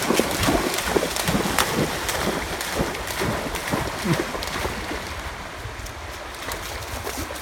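Vizsla dog bounding through a shallow stream, its legs splashing the water in a quick run of strikes, over the steady rush of the flowing water. The splashing fades after about four or five seconds, leaving the stream's rush.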